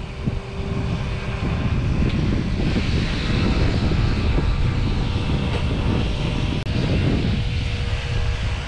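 Wind buffeting the camera microphone: a loud, uneven low rumble with a hiss over it that grows stronger about two and a half seconds in.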